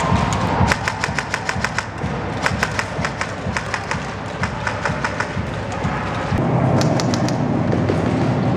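Bursts of rapid airsoft gunfire, several short strings of fast clicking shots. A low engine rumble comes in about six seconds in.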